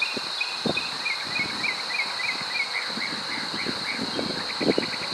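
A bird singing a quick run of short repeated chirping notes over a steady high insect trill, with scattered soft knocks and rustles close by.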